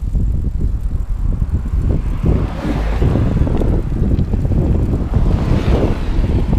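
Wind buffeting the microphone over the rumble of a recumbent trike rolling along a paved road. It is a steady, dense rumble that swells twice, about three seconds in and again near the end.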